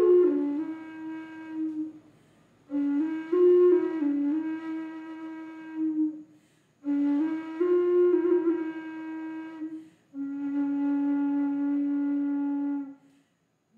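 Native American flute playing a slow improvisation in breath-long phrases separated by short pauses. Each phrase steps through a few notes and settles on a held low note, and the last phrase near the end is a single long steady note.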